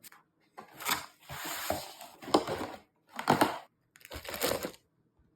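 Packaging being handled during an unboxing: four short bursts of crumpling, rustling noise, the longest about a second and a half.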